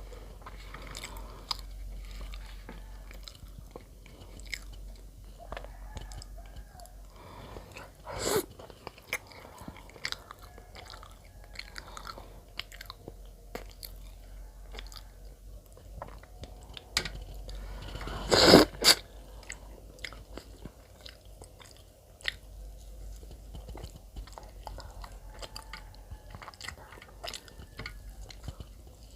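Close-up chewing of bread: wet smacking and small crunches as a person eats. There are two louder sudden sounds, one about 8 seconds in and one around the middle.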